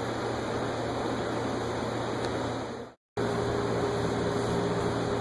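Steady background hum and hiss with no speech. It cuts out for a split second about three seconds in, then resumes with a faint steady tone added.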